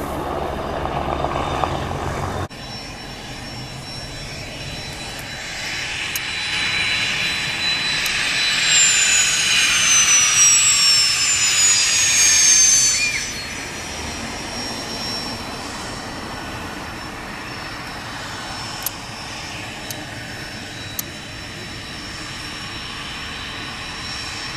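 A helicopter's rotor and turbine rumble for the first couple of seconds, then cut off abruptly. A small twin-engine business jet then taxis past: its turbofan whine grows louder and slides down in pitch as it passes, then settles into a steady, fainter whine.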